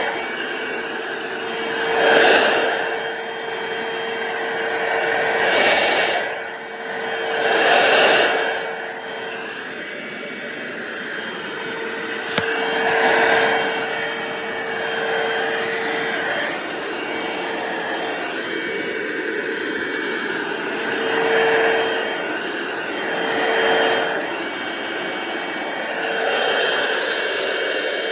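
Cordless stick vacuum cleaner running steadily with a constant hum, its rushing noise swelling and easing every couple of seconds.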